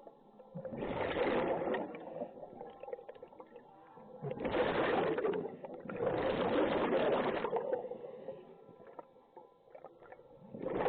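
Scuba diver breathing through a regulator underwater: exhaled air bubbles out in several bursts of a second or two each, with quieter pauses between.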